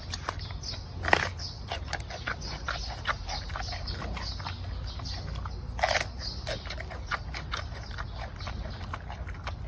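An animal chewing and biting, with many small irregular crunches and clicks and a couple of louder snaps, over a steady low rumble.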